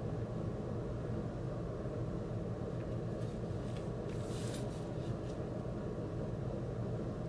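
Steady low background hum. A shrink-wrapped vinyl record sleeve rustles and crinkles briefly as it is turned over in the hands, about three to five seconds in.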